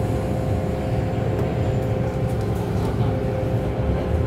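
MTR M-Train electric multiple unit running, heard from inside the car: a steady low rumble of wheels on the track with a steady motor whine over it.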